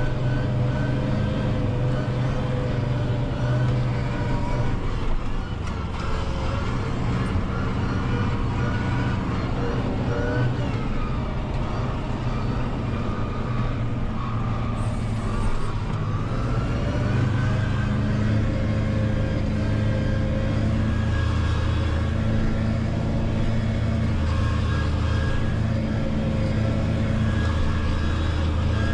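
Valtra N 121 tractor engine running steadily under mowing load, heard from inside the cab. About midway the engine note drops and then climbs back up.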